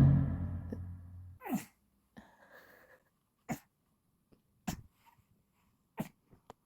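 A loud thump at the very start that rings briefly, then an eight-month-old baby making short, sharp nasal snorts, five of them about a second apart.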